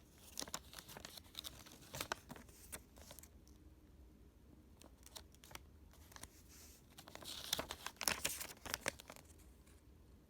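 Paper and packaging being handled: crinkling and rustling with small clicks, in two busy spells, in the first few seconds and again around eight seconds in.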